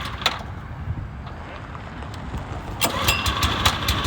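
Clicks and handling noise, then about three seconds in a burst of sharp knocks as the small Honda gasoline engine of the chute's hydraulic power unit is being started, catching to a steady run just at the end.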